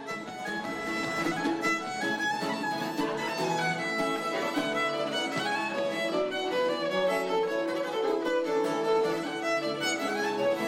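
Violin playing a Galician traditional tune, with a plucked string instrument accompanying; the music fades in over the first second.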